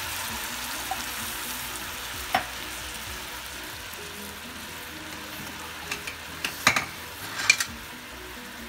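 Butter, brown sugar and water sizzling and bubbling in a hot pan just after the water goes in to start a syrup. The sizzle slowly quietens, with a sharp tap about two and a half seconds in and a cluster of taps near the end.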